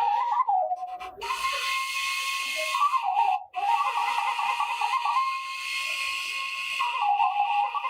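Washint, the Ethiopian end-blown bamboo flute, playing a breathy solo melody: long held notes broken by quick trills and ornaments, with a short pause for breath about three and a half seconds in.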